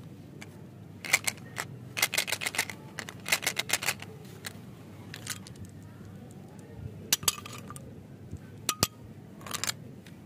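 Small hard-coated candies clicking and rattling against a clear plastic umbrella-shaped candy container as it is opened and the candies are tipped out, in several short runs of rapid clicks with a pause in the middle.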